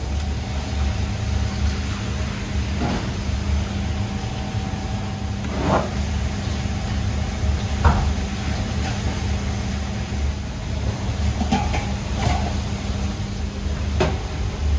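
Restaurant kitchen ambience: a steady low hum of kitchen equipment, with a handful of light knocks and clicks scattered through it.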